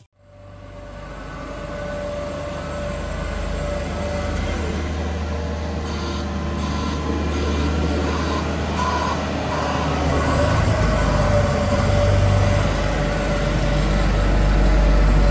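Diesel engine of a tandem asphalt roller running as it rolls over freshly laid tarmac, with a steady whine over a deep engine drone. It grows louder as the roller comes close.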